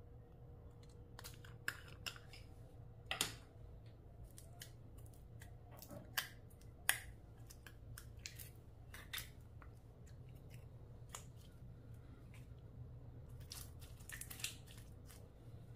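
Clear slime being worked by hand, with irregular sharp clicks and pops: a few in the first seconds and a quick cluster near the end.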